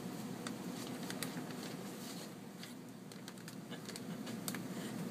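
Irregular crinkling and light clicking of plastic shrink-wrap and bottled-water packs under a kitten's paws as it clambers over them, over a steady low background hum.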